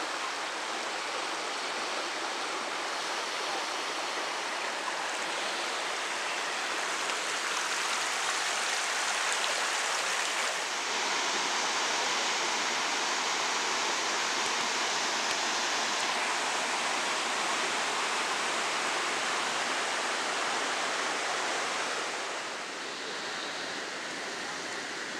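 River water rushing over rocks and small cascades: a steady rushing hiss that grows a little louder about ten seconds in and softens a few seconds before the end.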